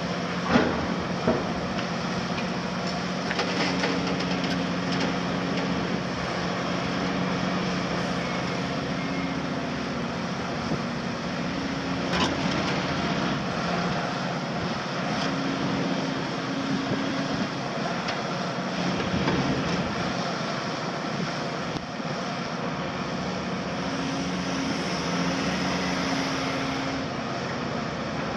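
Cat 352F demolition excavator running under load, its C13 diesel and hydraulics giving a steady hum that drops in and out, while its hydraulic crusher jaws break concrete with a few sharp cracks, the loudest about a second in and another about twelve seconds in.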